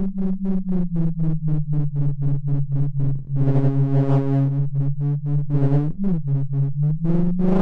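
Electronic synthesizer tone chopped into rapid even pulses, about seven a second. Its low pitch slides down at the start and dips again about six seconds in, and it turns brighter and buzzier for a few seconds in the middle.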